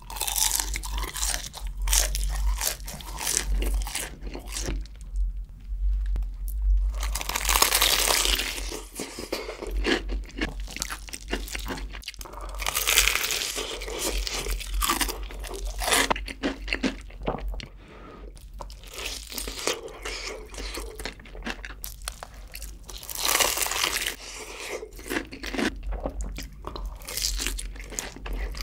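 Close-miked crunching and chewing of crispy fried chicken and a breaded cheese stick: crackly bites come in several loud bunches, with quieter chewing between.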